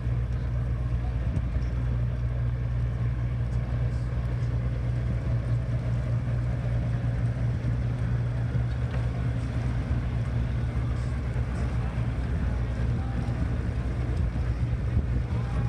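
Marine engines of boats motoring slowly through a lock chamber: a steady low engine drone that holds an even level throughout.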